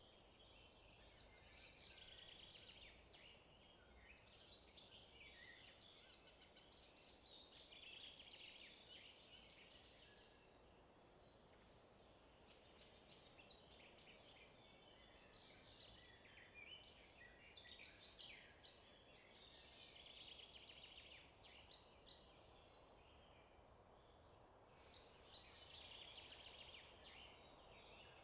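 Near silence with faint, busy bird chirping and twittering that comes and goes in clusters.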